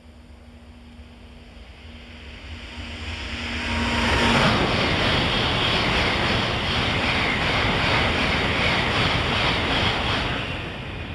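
E2-series Shinkansen train passing through a station non-stop at about 238 km/h: a rushing noise that swells over about two seconds, holds loud for around six seconds as the cars go by, then fades near the end.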